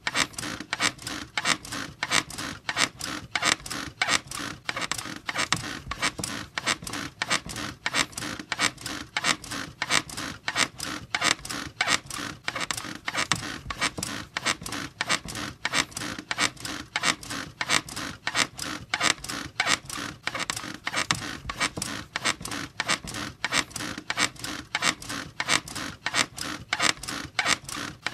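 Bed squeaking over and over in a steady, fast rhythm, about two to three squeaks a second, from a looped sound effect.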